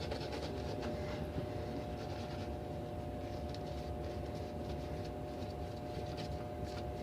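Razor scraping through lathered stubble on a second shaving pass: a faint, dry scratching made of many short strokes, over a steady thin hum.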